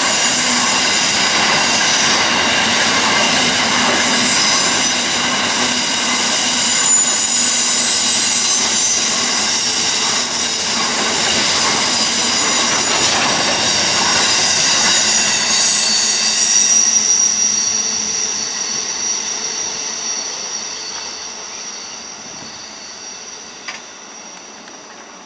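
Grain train's hopper wagons rolling past close by, with a steady high-pitched squeal from the wheels. The noise fades away over the last several seconds as the end of the train passes and recedes.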